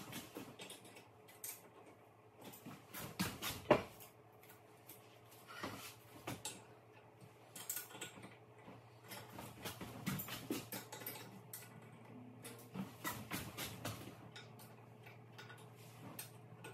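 Scattered light metallic clicks and taps of a wrench and pliers working the stainless cable tensioner fittings on a post-and-cable railing as the cables are tightened one after another.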